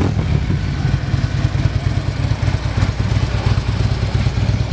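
2015 Harley-Davidson Road Glide's 103 cubic-inch V-twin running steadily at idle through Rinehart aftermarket exhaust pipes, a deep, loping rumble.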